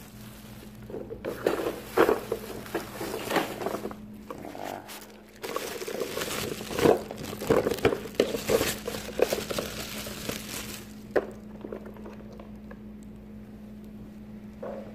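Rustling and handling noise with scattered knocks and clatters, busiest in the first ten seconds and dying down near the end, over a steady low hum.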